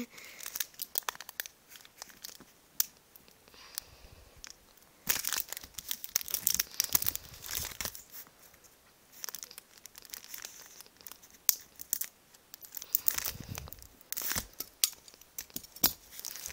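Plastic blister pack being peeled apart and handled: crinkling and tearing crackles that come and go in irregular spells.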